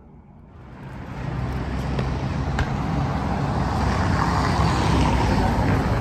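Steady road traffic noise, starting suddenly about half a second in and growing louder.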